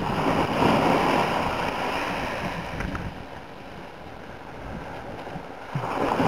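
Steady wind and sea-water noise, the waves washing with wind on the microphone: strongest in the first second, easing through the middle and rising again near the end.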